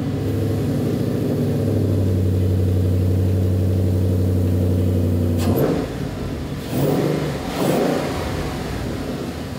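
A Ford Mustang GT's 5.0-litre Coyote V8, fitted with a Boss 302R intake manifold and a JLT cold air intake, running at a steady high idle just after its first start-up following the intake swap. About halfway through it is revved a few times, then settles to a lower idle.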